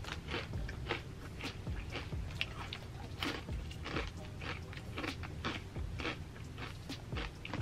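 Someone chewing crunchy Doritos tortilla chips, with irregular crisp crunches two or three times a second.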